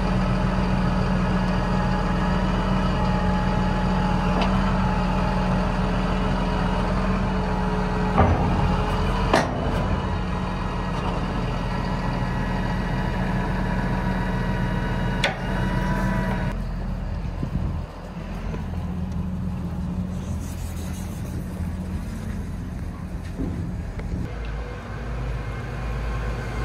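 A heavy vehicle engine running steadily, with a few sharp knocks. About two-thirds of the way through it turns duller and a little quieter.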